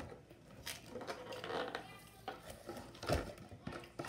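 Light clattering and knocking as a small radio-controlled truck is picked up and handled, with a louder dull knock about three seconds in.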